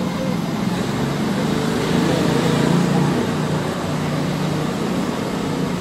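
Street traffic noise: a large vehicle's engine droning steadily, swelling slightly about two to three seconds in.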